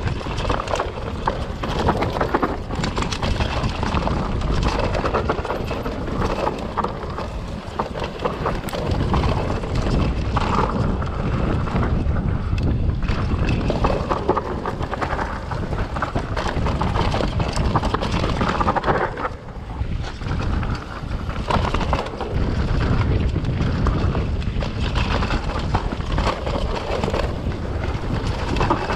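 Wind rushing over an action camera's microphone during a mountain-bike descent, with the bike clattering and rattling over rough ground throughout, easing briefly about two-thirds of the way through.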